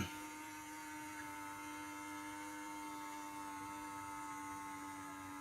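Kyosho LeMans 480 Gold brushed RC motor running steadily at low voltage while submerged in water for brush break-in, a constant electric hum with a steady whine above it.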